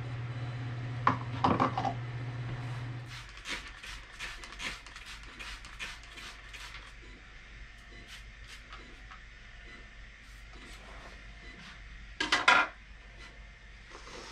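Hand trigger spray bottle spritzing rigidizer onto the ceramic-wool lining inside a small propane forge: a quick run of short sprays, several a second, then sparser ones. A couple of knocks at the start as bottles are handled, and one louder clatter near the end.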